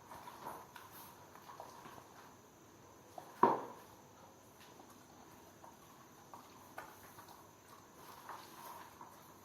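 Faint scattered taps and clicks, with one sharper click about three and a half seconds in.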